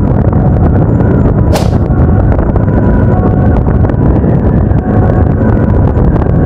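Motorcycle riding noise: a loud, steady low rumble of wind buffeting and engine and road noise, with one sharp click about one and a half seconds in.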